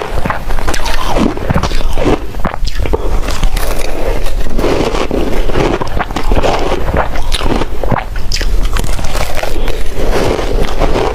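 A person biting and chewing ice: a loud, unbroken run of crunches and cracks.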